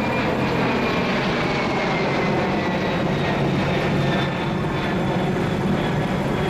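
Jet engines of a Boeing KC-767 tanker running steadily, with a high whine that slowly falls in pitch over the first few seconds.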